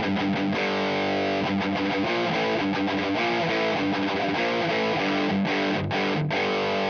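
Distorted electric guitar playing chords through the Audiority L12X, a Marshall JCM-style solid-state amp simulation plugin, with a Two Notes cabinet simulation of a Mesa Oversize 4x12 cabinet. The playing breaks off briefly a few times near the end.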